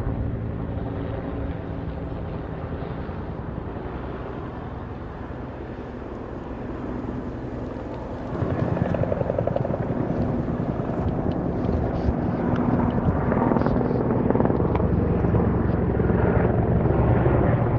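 Firefighting helicopter's rotor and engine running steadily, growing suddenly louder about eight seconds in as it comes closer.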